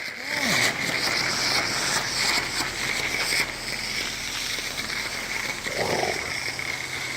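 Car wash pressure-washer wand spraying water: a steady hiss over a low hum.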